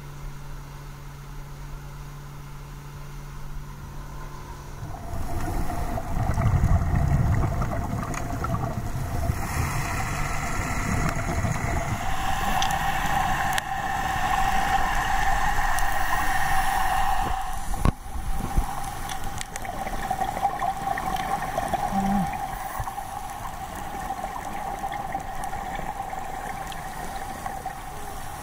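A boat engine running steadily as the boat speeds over the sea. About five seconds in it gives way to muffled underwater noise: rushing and bubbling with a steady mid-pitched hum.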